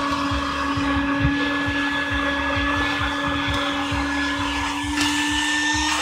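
Vacuum cleaner running steadily with a constant motor whine, sucking dust and grit out of a car's interior, with clothing rubbing and bumping against the microphone.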